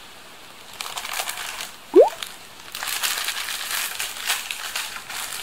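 Plastic food packaging crinkling and crackling irregularly as an instant noodle cup's wrapper and seasoning sachet are handled and opened. About two seconds in there is a brief, loud rising squeak.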